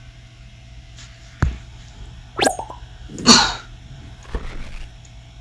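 A sharp knock, a quick rising squeal, then a loud splash as an engine plunges into water, with a smaller knock near the end.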